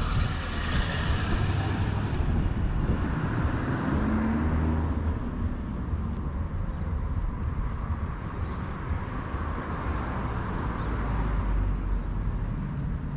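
City street traffic: cars passing on the road, a steady mix of engine and tyre noise.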